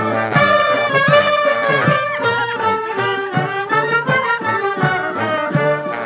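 Klezmer band playing live: brass horns carry the tune over a steady beat of about two strokes a second.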